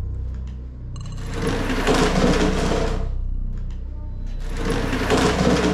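A low droning music bed, broken twice by about two seconds of harsh, rasping noise. The second burst repeats the first.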